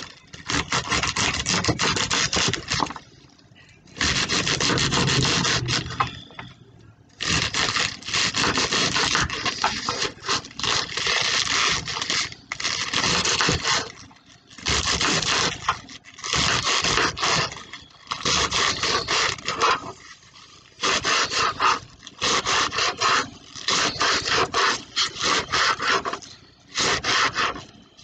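Kitchen knife slicing through bok choy on a plastic cutting board, in bursts of quick back-and-forth strokes with short pauses between them.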